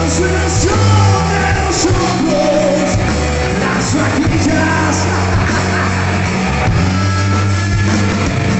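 Live rock band playing loudly, with sung and shouted vocals over bass, electric guitar and drums with cymbal crashes.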